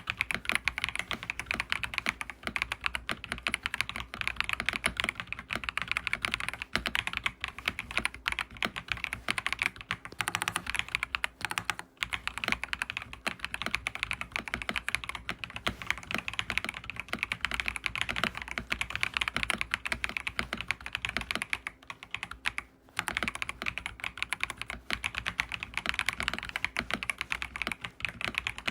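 Continuous fast typing on a KZZI K75 Pro gasket-mount 75% mechanical keyboard: a dense run of keystroke clacks, briefly easing off about ten seconds in and again a little past twenty seconds.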